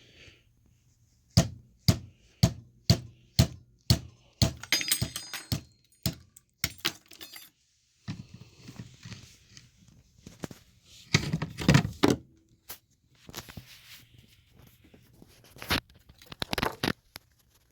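Butter knives wedged in a rock nodule being tapped to split it along its layers: about seven sharp knocks, two a second, then metallic clinking and a clatter as the knives and the rock are worked and handled, with a few more knocks near the end.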